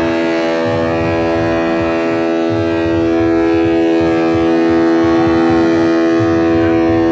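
A ship's horn sounding one long, loud blast at a steady pitch, several notes ringing together, with a low uneven rumble underneath.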